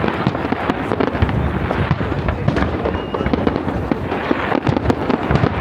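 Fireworks going off in a dense barrage: many overlapping bangs and crackles in quick succession, with no pause.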